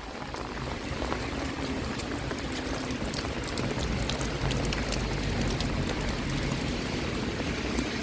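Steady rain falling, with many small drop ticks over a continuous hiss and a low rumble underneath.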